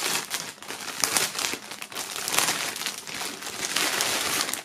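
Clear plastic wrapping film crinkling and rustling as it is pulled off a folded T-shirt by hand.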